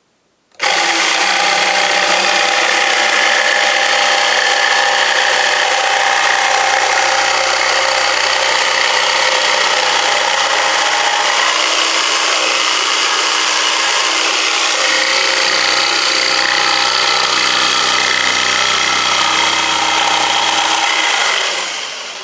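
Jigsaw cutting through 3/4-inch plywood, sawing out a slot. It starts suddenly about half a second in, runs at a steady high speed, and winds down near the end.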